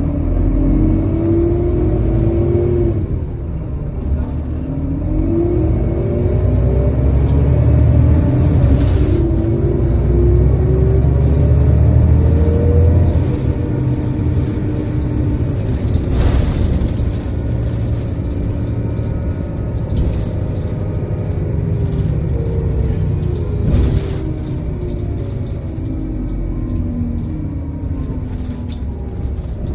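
Heuliez GX 427 articulated bus engine accelerating hard under kickdown. Over the first dozen seconds its pitch climbs and falls back several times as the automatic gearbox shifts, loudest about eight to thirteen seconds in. It then runs more steadily, with the pitch sinking toward the end.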